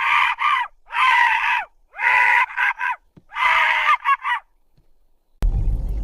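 Four bouts of loud, harsh, honking animal calls, each under a second long, then a sudden deep, low rumble starts about five seconds in.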